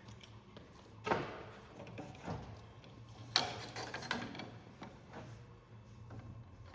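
Knocks and scrapes of an oar being slid and handled on the workbench: four separate knocks, the loudest about three and a half seconds in, over a steady low hum.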